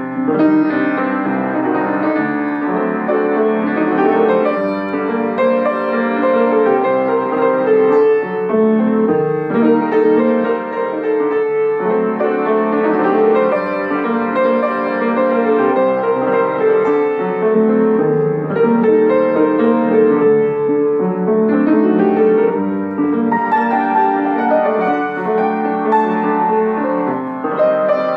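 Petrof upright piano played with both hands: an Armenian folk melody over chords, in a steady flow of notes.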